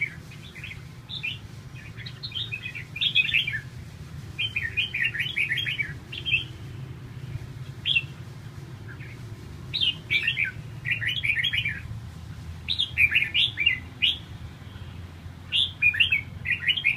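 Caged red-whiskered bulbuls singing: short phrases of quick, chirpy warbled notes, each about a second long, repeated every second or two.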